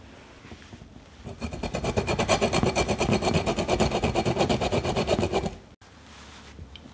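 Yuzu peel being grated on a flat hand grater: a fast, even run of rasping strokes, about nine a second, starting about a second in and stopping abruptly near the end.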